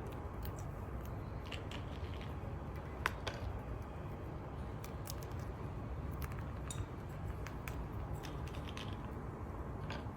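Scattered light clicks and taps of small hard objects, with one sharper click about three seconds in.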